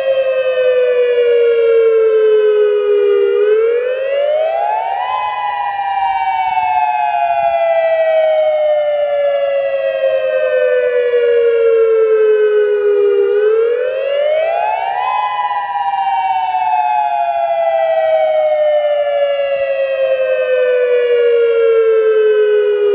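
Federal Signal Modulator II electronic outdoor warning siren sounding its dual-tone wail in a test. Two close tones sweep together, falling slowly over about eight seconds and then rising quickly over about two, twice over, before the wail stops at the very end.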